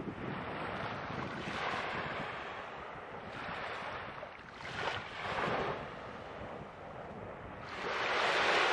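Small waves breaking and washing up a beach, swelling and fading every second or two, with the loudest wave near the end.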